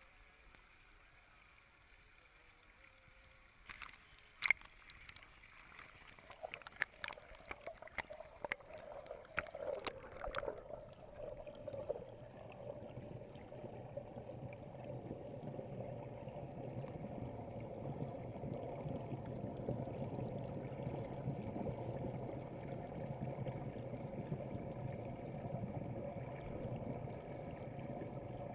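Churning pool water heard muffled from underwater. About four seconds in comes a run of sharp clicks and splashes lasting several seconds, then a steady bubbling rush that builds and holds.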